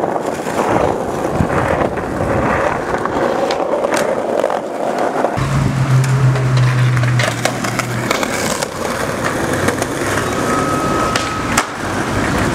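Skateboard rolling on pavement, the wheels making a steady rumbling roar, with several sharp clacks of the board striking the ground.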